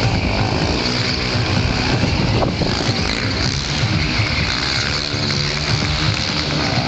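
Quad bike (ATV) engine running, mixed with loud background music.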